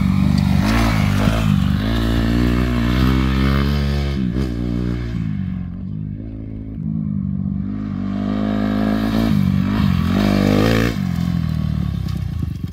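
Honda CRF250R four-stroke single-cylinder motocross bike revving up and down as it rides the dirt track. It fades as it goes farther off about five seconds in, then grows louder again as it comes back around.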